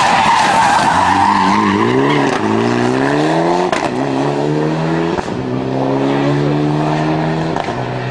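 Mitsubishi Lancer Evolution rally car's turbocharged four-cylinder engine, first with tyres squealing through a hairpin, then accelerating hard away up through the gears: the pitch climbs and drops back at each of about four gear changes, with a sharp crack at some of the shifts.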